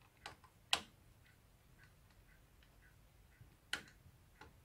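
Screwdriver tightening screws in a VCR's tape-loading mechanism: a few faint sharp clicks and small ticks, the loudest about three-quarters of a second in and another near the end.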